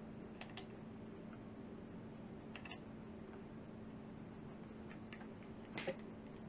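A few faint paired clicks from a hot glue gun being worked against a painted wooden block, then a sharper double knock near the end as the glue gun is set down on the table, over a faint steady hum.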